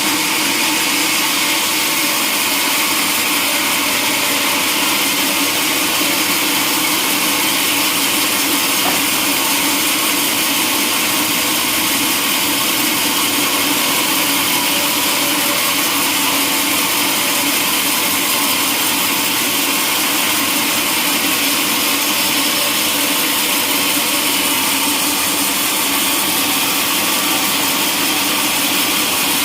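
Sawmill saw running, cutting timber: a loud, steady machine noise with a hum and a strong hiss that does not change.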